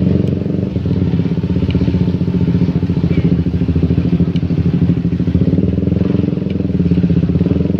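Small motorcycle engine running at a steady speed, with a fast, even pulsing throb.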